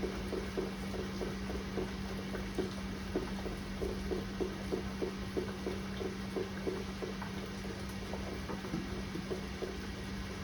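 Water drops pattering irregularly, several small ticks a second, over a steady low hum.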